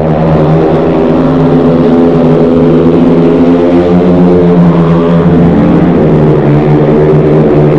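Several speedway motorcycles racing together, their 500 cc single-cylinder methanol engines running flat out as a loud, continuous pack, the pitch rising and falling as the riders go through the bend.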